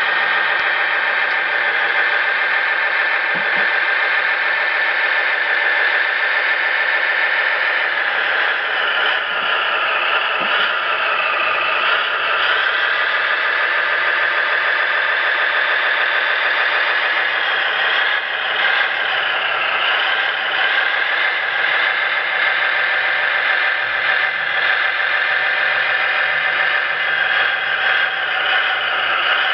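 Synthesized engine sound from an RC model's SMX sound card, played through its small speaker: a steady running note that revs up and back down twice, about a third of the way in and again a little past the middle.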